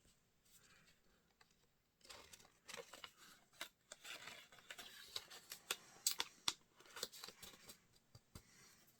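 Hands picking, tugging and crinkling at a stubborn bit of packaging, with many small sharp clicks and rustles starting about two seconds in.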